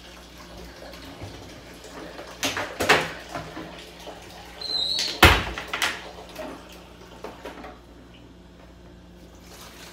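Knocks and clatter of things being handled and set down at a kitchen sink, a few scattered strokes with the loudest, a heavy knock, about five seconds in.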